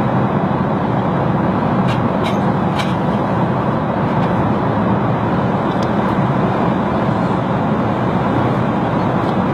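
Steady cabin noise of an Emirates Airbus A380 airliner in cruise flight, an even rushing drone, with a few faint light clicks in the first few seconds.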